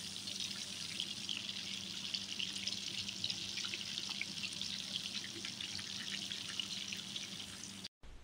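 Breadcrumb-coated shrimp deep-frying in hot oil: a steady sizzle with many small crackles and pops. It cuts off suddenly just before the end.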